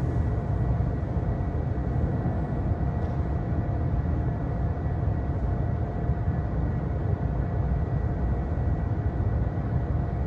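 Steady low rumble of electric fans running, with a faint steady hum over it.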